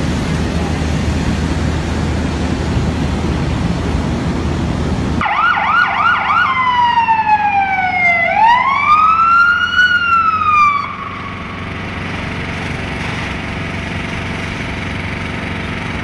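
Low rumbling noise for about five seconds, then an emergency vehicle siren: a few quick yelps, then a slow wail that falls and rises again, cutting off about eleven seconds in, leaving steady noise.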